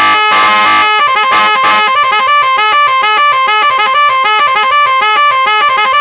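Telolet electric horn kit's three horns sounding loud, first as a pulsing chord, then from about a second in as a fast melody of alternating notes, several a second.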